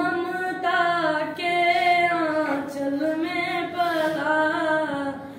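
A boy singing solo and unaccompanied, in long held notes that slide and bend in pitch, with brief breaks between phrases.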